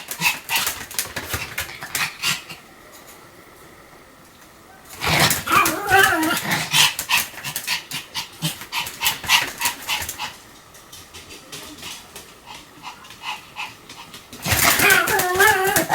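Pomeranian barking in rapid runs of yaps, mixed with whining, twice dropping away for a few seconds before starting up again.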